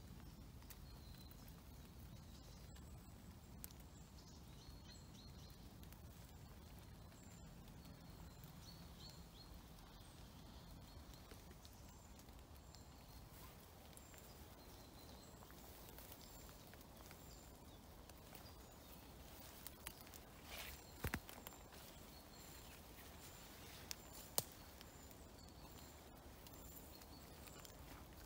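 Near-silent forest ambience with faint, repeated high peeps. A few sharp cracks and clicks come about two-thirds of the way in, from footsteps on twigs and leaf litter.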